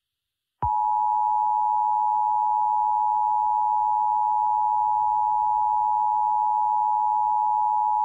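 Emergency Alert System attention signal: the two-tone (853 and 960 Hz) alert tone, starting just over half a second in and holding steady and unbroken, announcing an emergency warning.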